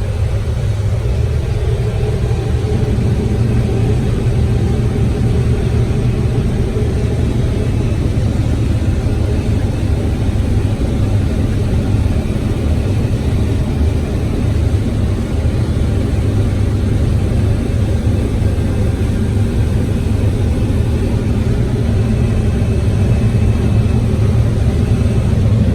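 Combine harvester running steadily while harvesting corn: a loud, even, low engine rumble.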